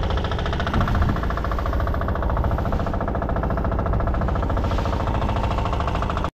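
Rabeta (longtail outboard) motor running steadily, pushing a fishing raft at cruising speed, with a rapid, even beat.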